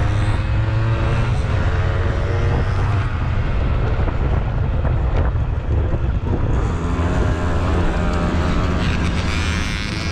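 Simson moped's single-cylinder two-stroke engine running hard under way, heard from on board. The pitch of the engine note shifts about six and a half seconds in.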